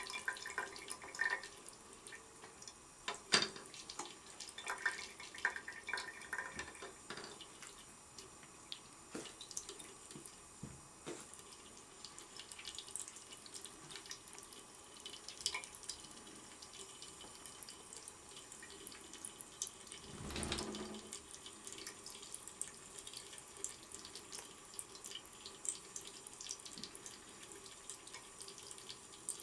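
Water running steadily from a tap into a sink, broken by irregular splashes and taps as the cats paw and bite at the stream, with one louder, deeper thud about twenty seconds in.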